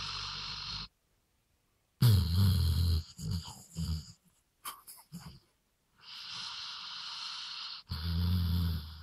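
Weimaraner snoring in its sleep: two loud rattling snores, one about two seconds in and one near the end, alternate with long, even, wheezy hissing breaths. A few short broken snuffles fall in the middle.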